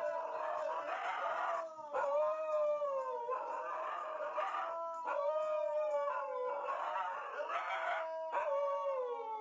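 An animal howling: long, wavering, held notes, one after another every few seconds.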